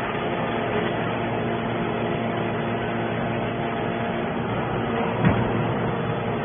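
200-ton hydraulic scrap baler running: a steady mechanical drone with a held whine from the hydraulic system, and a single short knock about five seconds in.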